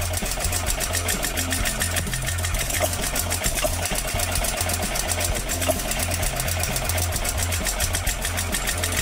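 Vintage single-cylinder stationary engine running steadily: an even low beat of about three strokes a second, with a fast mechanical clatter over it.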